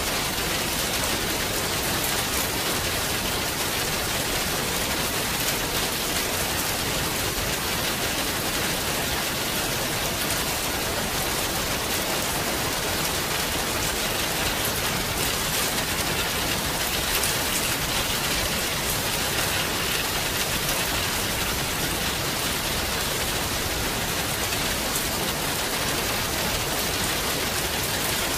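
Steady rain falling, an even hiss with faint drop ticks throughout.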